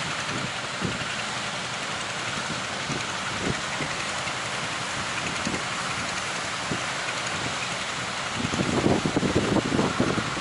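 Strong wind buffeting the microphone over a steady rushing noise, with the buffeting heaviest from about eight seconds in.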